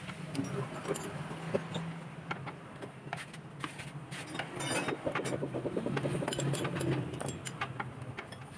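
Socket ratchet on a long extension clicking as it works loose the front cross member bolts of a BMW's suspension, with a run of quick ratchet clicks about halfway through and scattered metal clinks of tools. A low steady hum runs underneath.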